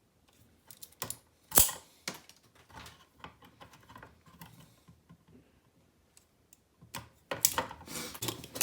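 Insulation being stripped off the cores of twin-and-earth cable: a series of sharp clicks and snaps, the loudest about a second and a half in, with busier handling noise near the end.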